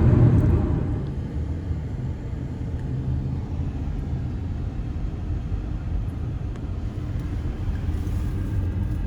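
Steady low rumble of a car driving, heard from inside the cabin, with road and engine noise. It eases a little about a second in.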